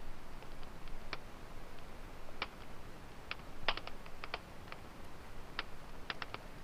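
Wood fire crackling: irregular sharp pops and snaps, a few each second and unevenly spaced, over a low steady hiss.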